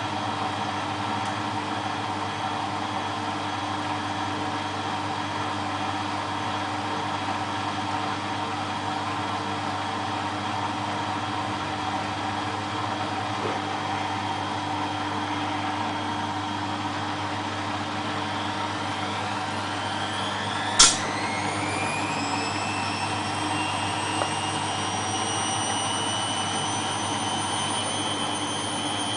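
Beko WMA642 washing machine running its spin cycle with a steady motor hum. From about two-thirds of the way in, a whine rises in pitch and levels off as the drum speeds up, and there is one sharp click partway through the rise.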